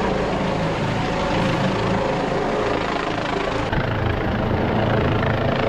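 Rescue helicopter holding overhead during a hoist operation: steady rotor and engine noise.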